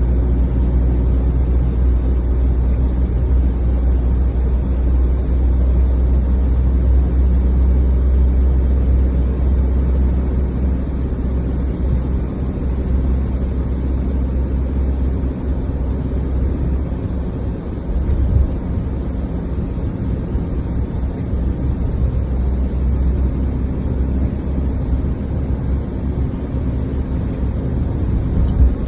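Car driving at steady speed: a continuous low rumble of engine and road noise.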